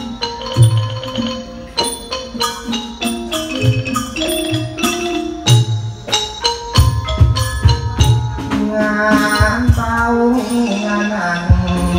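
Thai traditional ensemble music accompanying likay: quick xylophone-like struck notes over drum beats and small cymbals. About two-thirds of the way in, a wavering melody line enters above them.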